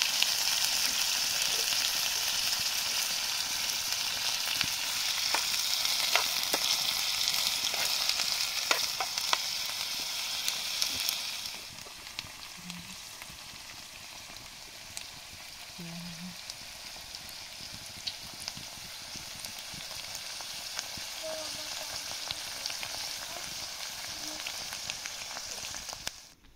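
A steady hiss dotted with small crackles and clicks. It drops sharply in level a little under halfway through and carries on more quietly.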